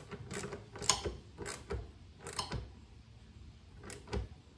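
Irregular sharp metallic clicks and clanks of a hand wrench tightening a bolt on an Evinrude Big Twin 40 outboard's powerhead, loudest about a second in and near the end.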